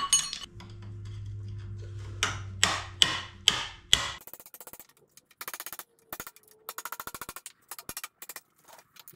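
Five sharp hammer strikes on rusty steel over a low steady hum, then a run of fast, even clicks lasting about four seconds.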